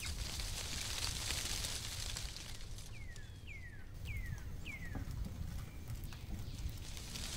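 Aluminium foil crinkling and rustling as it is peeled open from around a roasted chicken. In the middle a bird gives four short whistles, each sliding downward in pitch.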